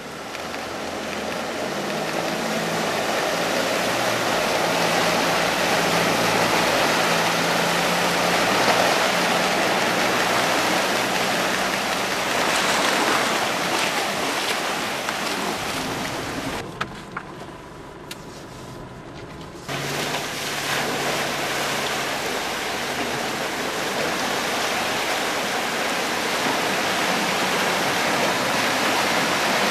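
Four-wheel drives towing trailers fording a deep muddy creek: a steady rush of water pushed aside by the vehicles over their running engines, dropping to a quieter stretch about two-thirds of the way through.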